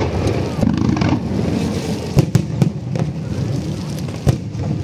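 Fireworks display: several sharp bangs of shells bursting, three in quick succession about two seconds in and another near the end, over a continuous low rumble.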